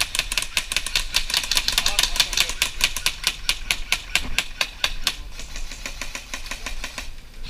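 Airsoft rifles firing in rapid strings of sharp clicking shots, several a second. The shots thin out after about five seconds.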